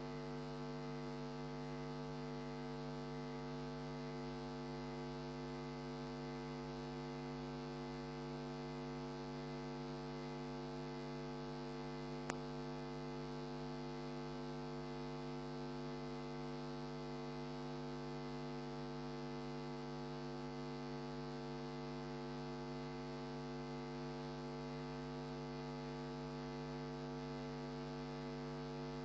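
Steady electrical mains hum with a stack of overtones, unchanging throughout, with one faint click about twelve seconds in.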